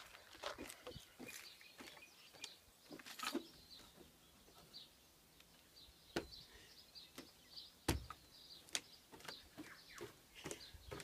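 Footsteps of a person walking, first on a gravel path and then on a metal-grating walkway, as irregular light knocks and crunches with one heavier thump a little after the middle. Faint bird chirps sound in the background.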